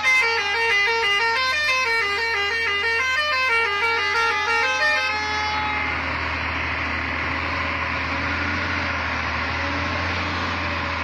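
A truck's musical horn playing a quick stepping tune of electronic-sounding notes for about five seconds, then steady engine and road noise as the truck drives on.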